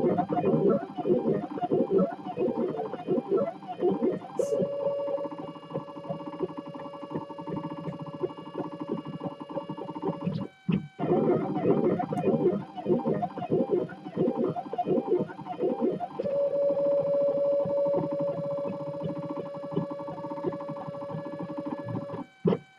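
3D printer's stepper motors whining as they drive a print: stretches of quickly changing, warbling tones from short back-and-forth moves alternate with long steady whines from long straight moves, twice, each cycle ending in a brief stop, about halfway through and again near the end.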